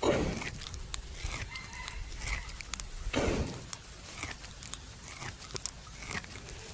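A buffalo chewing its cud: soft, rhythmic grinding and clicking of the jaw, roughly one stroke every two-thirds of a second, with two louder low whooshes at the start and about three seconds in. A rooster crows faintly in the background.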